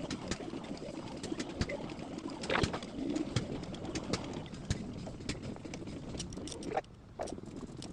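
Irregular sharp clicks and clinks of hand tools on engine parts during assembly, with a dove cooing.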